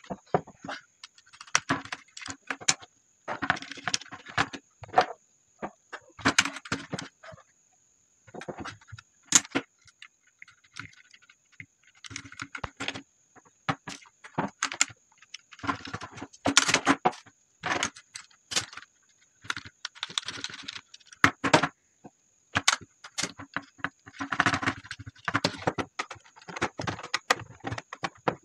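Plastic switchboard parts being handled on a tabletop: irregular clicks, clatters and rattles as modular switches are pressed into the board and the board is moved about. A faint steady high whine runs underneath.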